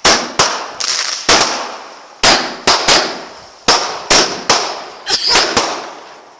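Fireworks going off in quick succession: a dozen or so sharp bangs, often two or three close together, each trailing off in a fading crackling hiss.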